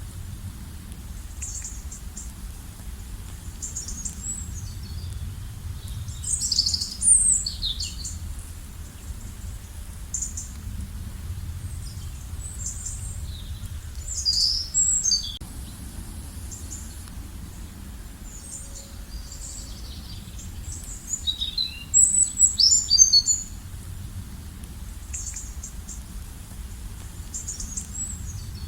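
Songbirds singing in bursts of quick, high, falling chirps every few seconds, over a low steady rumble of outdoor background noise.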